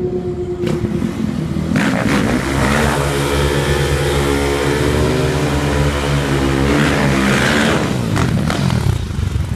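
Motorcycle engine revved up about two seconds in, held at steady high revs for about four seconds, then let back down near the end.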